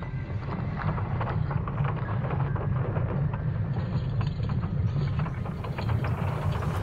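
Marsquake recording from NASA's InSight lander seismometer made audible: a steady low rumble with many scattered crackles and clicks, and a hiss coming in over the top about five seconds in.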